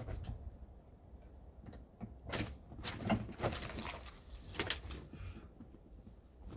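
Hood of a snow-covered Jeep Grand Cherokee WJ being unlatched and lifted open: a few sharp clicks and knocks, the loudest between about two and five seconds in. The engine is not running.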